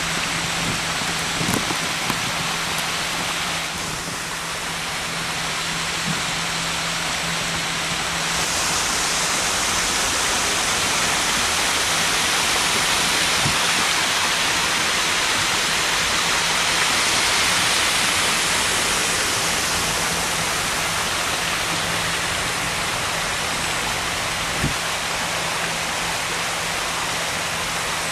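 Surface water pouring over a stone weir and cascading down stonework into an open culvert stream: a loud, steady rush of falling water that grows louder through the middle.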